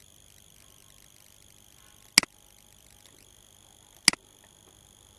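Two short sharp clicks about two seconds apart over a faint steady high-pitched hum.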